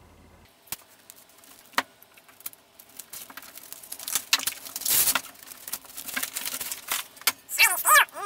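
A flat bar of O1 tool steel being handled and moved about on a workbench: scattered clinks and knocks, with a longer scrape about five seconds in.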